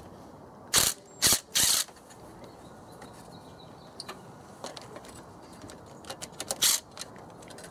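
Ridgid cordless driver spinning out engine-cover bolts through a socket extension: three short bursts about a second in and another near the end, with small clicks of the socket and fasteners in between.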